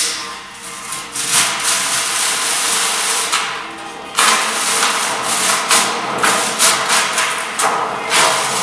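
Old wallpaper being torn and scraped off a wall: long rasping pulls, one after another with short breaks between them.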